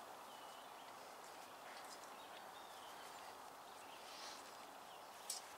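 Near silence with faint bird chirps now and then and a single light click near the end.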